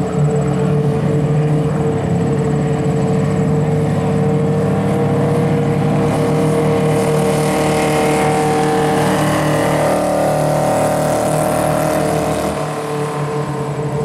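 TQ midget race car engine running at speed around the track. The sound swells as the car passes close about halfway through, then falls away near the end.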